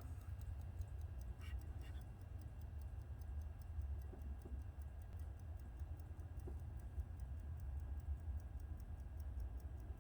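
Rolex desk clock ticking steadily and evenly, running normally after repair, with quick light ticks of about five a second. A steady low hum lies underneath.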